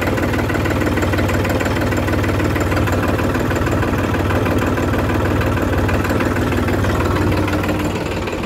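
Tractor's diesel engine running steadily at a constant speed, heard from the tractor seat, getting slightly quieter near the end.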